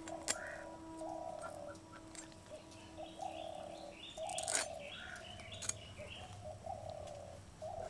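Birds calling in a string of short repeated notes, with sharp scraping clicks as a climbing perch is scaled against an upright boti blade; the loudest scrape comes about four and a half seconds in.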